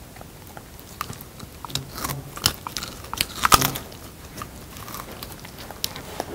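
A border collie biting and chewing raw quail: a few wet, crunching bites, clustered in the middle and loudest about three and a half seconds in. The bites are hesitant, a single try at chewing before the dog gives up on the quail.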